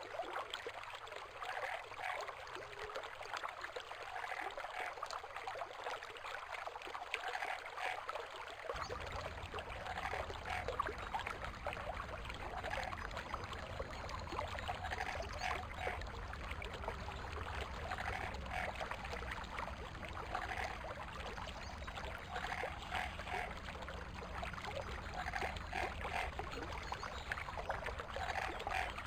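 Running water of a forest stream, a steady rushing, with frogs calling in short croaks that repeat every couple of seconds. A low rumble joins about a third of the way through.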